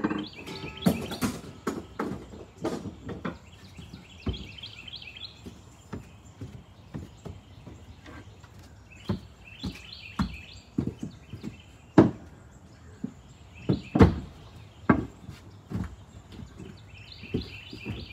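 Irregular wooden knocks and thumps from boards being handled and set down on wooden steps, two of them louder about two-thirds of the way through. A bird sings short bursts of rapid chirps every few seconds.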